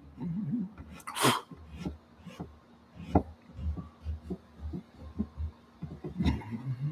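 Pastel being worked on gesso-coated watercolor paper fixed to an easel board: a longer scratchy stroke about a second in, then short sharp ticks, over irregular low knocks from the board.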